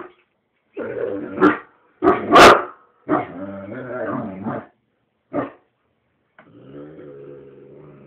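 Great Dane growling and barking in short outbursts, with the loudest bark about two and a half seconds in and a long, low growl near the end; the dog is upset by a ceiling fan being switched off and on.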